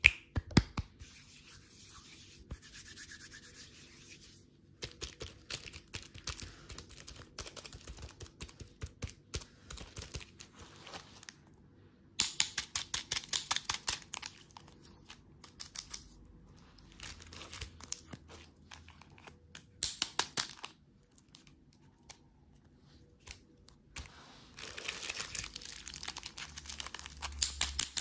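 Plastic candy packaging crinkling and tearing as it is opened by hand. The sound comes in spells of rapid crackling separated by brief pauses.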